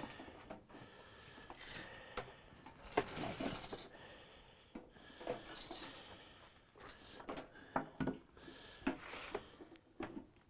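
Faint, scattered knocks, clicks and scrapes of metal parts and tools being handled and fitted together on a workbench, with a few sharper clicks in the second half.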